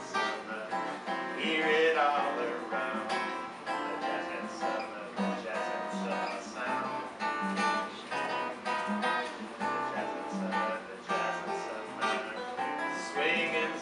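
Solo steel-string acoustic guitar playing an instrumental passage, a continuous run of quick notes and chords.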